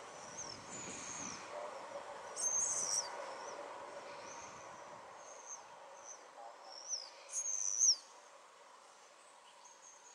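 Small birds calling in short, high chirps about once a second, with two louder calls, one about two and a half seconds in and one near three quarters of the way through, over a faint steady background noise.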